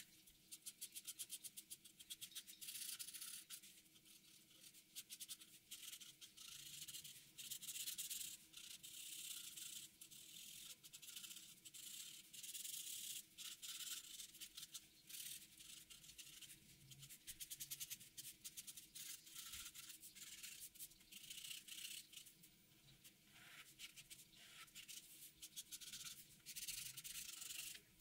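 Faint scratching of a felt-tip marker on paper: many quick short strokes in runs, with brief pauses between them, as the drawing is inked and shaded.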